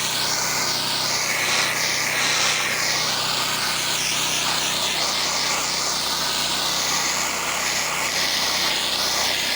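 Pressure washer rinsing a house: a steady hiss of high-pressure water spray, changing in tone as the stream moves over the surfaces, over the steady hum of the machine's engine and pump.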